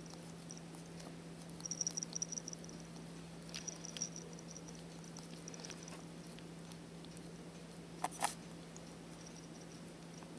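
Young ferret grooming its face: faint licking and small clicks as it licks its paws, with a pair of sharper clicks about eight seconds in, over a steady low hum.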